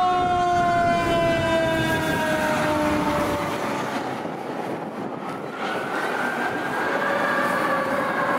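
Emergency vehicle siren and horn as the fire engine drives off. A loud multi-tone horn chord is held over the first three seconds, sliding slowly down in pitch as it fades, then a siren wail rises and falls slowly from about six seconds in.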